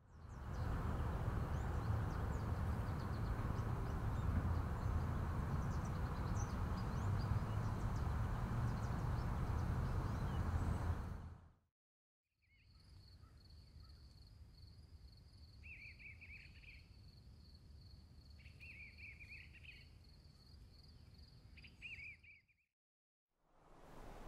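Nature ambience in two parts. First a loud, steady rushing noise with faint high chirps in it, which cuts off just before the middle. After a brief silence comes a quieter steady high insect trill, with three short bird calls a few seconds apart, until it cuts out again near the end.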